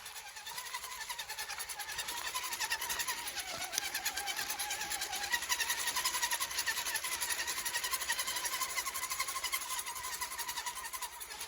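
RC rock crawler's electric motor and geared drivetrain whining, the pitch wavering, dipping and rising again with the throttle, over a rapid rough rattle.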